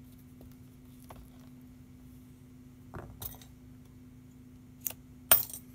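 Small metal hand tools clinking as they are handled on a workbench: a few light clicks, then one sharp, loud clink near the end.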